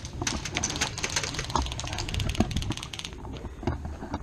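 Rapid airsoft gunfire: a fast, even clatter of clicks for about three seconds that stops sharply, with a few scattered clicks after.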